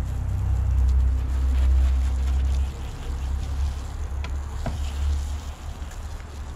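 Garden hose spray nozzle spraying water over a car's body, under a heavy low rumble that eases off about two and a half seconds in. A couple of sharp ticks come near the middle.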